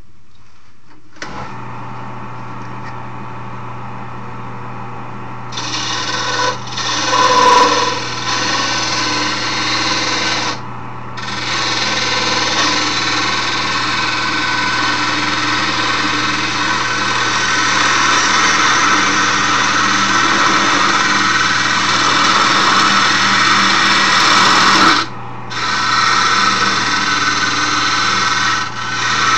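Wood lathe motor switching on about a second in and running with a steady hum. From about five seconds in, a tool or abrasive is held against the spinning wooden handle, a loud rasping scrape in long stretches with a few short breaks.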